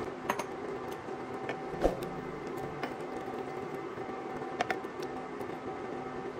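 Stew simmering in a cast-iron pot while a spatula stirs it, with a few light clicks of the spatula against the pot over a steady background hum.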